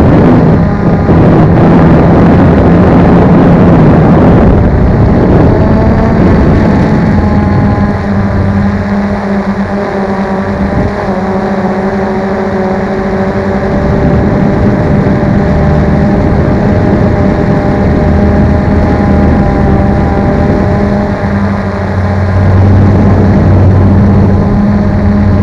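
Small camera drone's electric motors and propellers running steadily in flight, a loud hum with a few whining tones that drift slightly in pitch, mixed with rushing air noise. It is louder in the first few seconds and again near the end.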